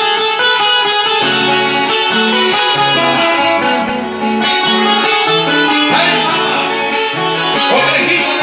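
A live band playing an instrumental passage led by plucked guitars, over a bass line stepping from note to note.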